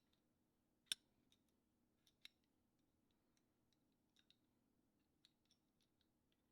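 Small metal clicks of Smith & Wesson M&P Shield .40 pistol parts being handled and fitted back together during reassembly: one sharp click about a second in, a smaller one shortly after two seconds, then faint scattered ticks.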